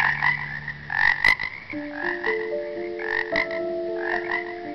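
A frog calling: short rattling croaks, each a quick run of pulses, repeated about once a second, with a pause in the middle.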